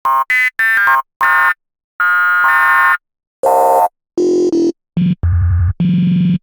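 A tiny looped slice of a sample played from a sampler as an instrument: a string of short, buzzy synth-like notes and chords at different pitches, each cutting off sharply with silence between, going lower near the end. The loop is faded, so the notes sound smooth, without clicks.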